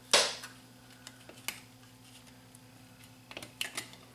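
Plastic and metal clicks as a VCR circuit board is pressed under its retaining clips on the chassis: one sharp click right at the start, a few light taps, then a quick cluster of clicks near the end.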